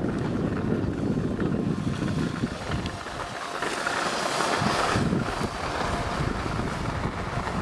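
Wind buffeting the microphone of a camera carried by a moving skier, over the hiss of skis sliding on packed snow. The hiss grows louder for a moment about halfway through.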